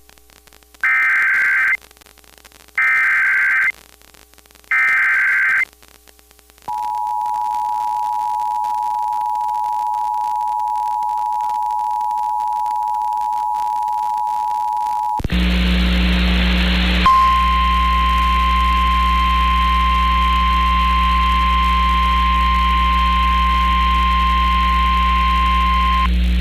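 Emergency Alert System tones: three short screeching bursts of SAME header data, then the two-tone EAS attention signal held for about eight seconds. Near the end of that the audio switches to a hissy relayed NOAA Weather Radio feed with a low hum, and its single-tone warning alarm sounds steadily for about nine seconds.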